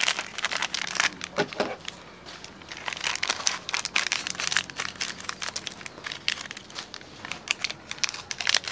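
A bundle of small chili-powder sachets crinkling and crackling in the hands while scissors snip them open, a quick, irregular run of crackles and snips.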